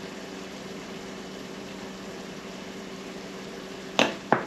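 Chicken and bell peppers sizzling steadily in a non-stick Dutch oven, with a faint low hum underneath. Near the end come two sharp knocks in quick succession.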